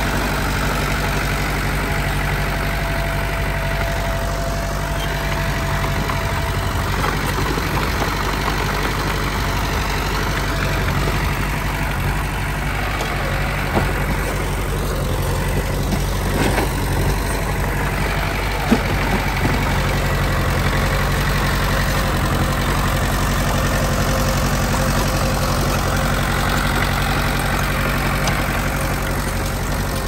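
Komatsu D20P bulldozer's diesel engine running steadily, with a few short knocks around the middle.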